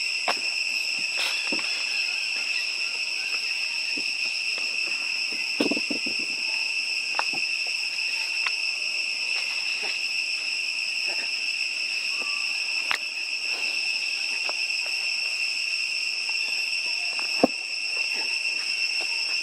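Steady, high-pitched drone of insects calling, unbroken throughout, with scattered light clicks and taps and one sharper tap near the end.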